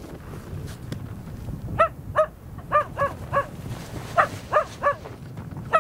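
A puppy yapping: about nine short, high yaps in little groups of two or three, starting a couple of seconds in.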